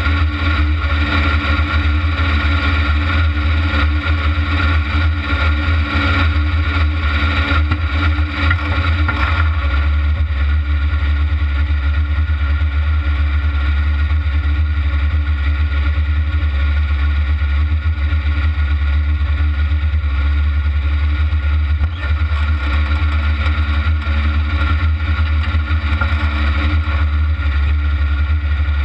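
Kart-cross buggy's engine running at steady low revs as the kart rolls slowly, heard loud through the onboard camera mounted on the car, with a heavy low rumble.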